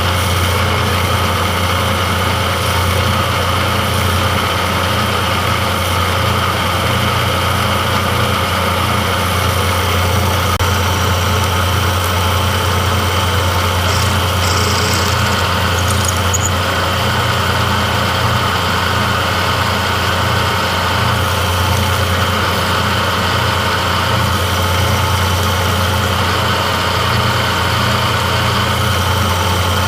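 Shop machine tool running steadily under power: a constant low hum with steady higher tones, unchanging throughout, with a brief faint higher-pitched sound about halfway.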